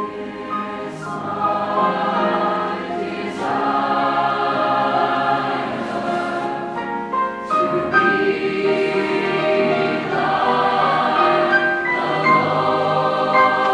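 Large mixed choir singing a gospel arrangement in full, sustained chords, swelling louder over the first couple of seconds and then holding at full voice.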